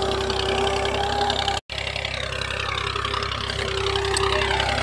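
Steady engine-like idling hum, broken by a brief dropout about one and a half seconds in.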